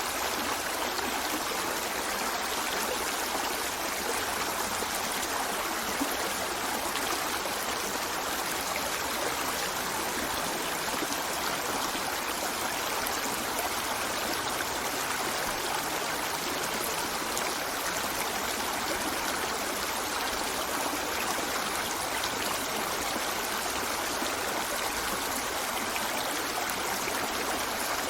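A river flowing steadily over rocks: continuous rushing and burbling water.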